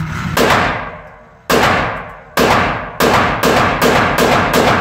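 Glock 20 10mm pistol firing about eight shots, the first few a second or so apart, then quickening to a steady two or three a second. Each report is sharp and echoes briefly before the next.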